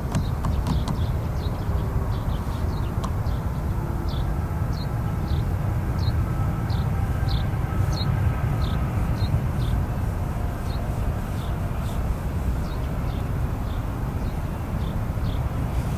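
Steady low rumble of the Airbus A220-100's Pratt & Whitney PW1500G geared turbofans as the jet rolls out and taxis after landing. Over it, a small bird chirps about every half second.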